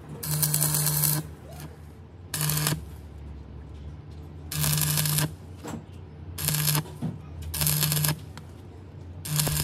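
Electric arc welding in six short bursts, each under a second long, a crackle with a low buzz from the welder during each; these are short stitch or tack welds joining two truck bogie shaft halves.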